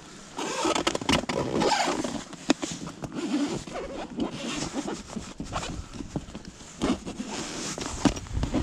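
Rustling, scraping and scattered clicks of gloved hands handling a soft-sided fish bucket and opening its round mesh lid.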